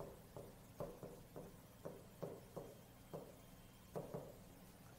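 Chalk writing on a blackboard: about ten faint, short taps at irregular intervals as the chalk strikes and strokes the board.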